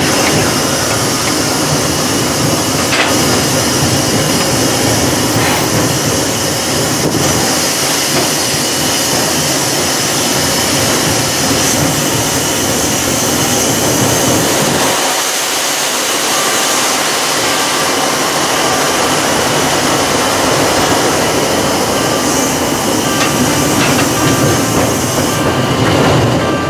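South African Railways class 19D 4-8-2 steam locomotive running, heard from its footplate: a steady loud mix of the engine working and wheels on the rails. About halfway through, the low rumble thins out.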